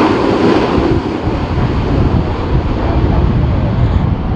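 Strong gusty wind buffeting the microphone, mixed with the broad rush of a jet airliner's engines that slowly fades as the high end thins out.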